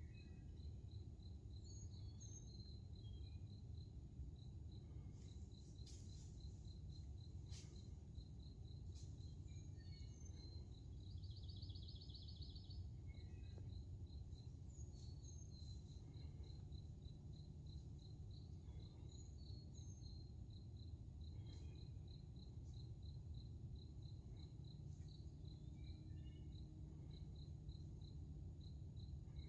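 Faint outdoor ambience: an insect chirping on one high pitch in an even, rapid pulse, several chirps a second, over a steady low rumble. Scattered bird chirps are mixed in, with a short trill about twelve seconds in.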